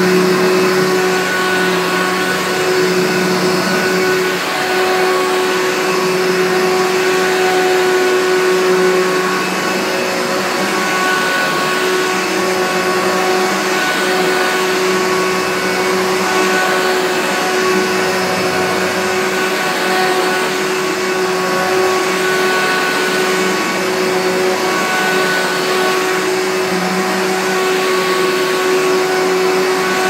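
Dirt Devil Featherlite upright vacuum cleaner running steadily as it is pushed over carpet: an even motor whine and hum over the rush of air.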